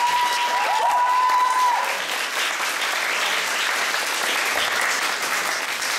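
Audience applauding steadily in a theatre, with a whistled tone and a few dipping whistles in the first two seconds.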